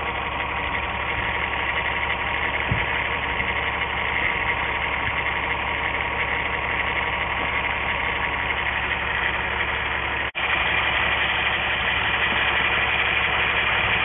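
1997 Volkswagen Eurovan's 2.6-litre VR6 engine idling roughly with a misfire on cylinders 1 and 6, the sign of a failed waste-spark coil for that pair of cylinders, as the mechanic concludes.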